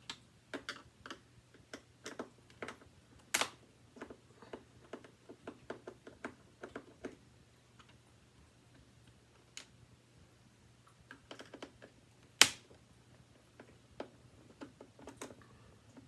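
Irregular clicks and taps of hard plastic parts being handled as a clogged Hoover WindTunnel bagless upright vacuum is opened up, with one sharp knock about twelve seconds in.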